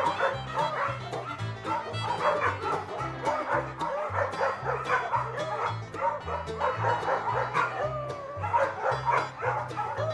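Dog barking and yipping in many quick, short calls, over background music with a steady low bass line.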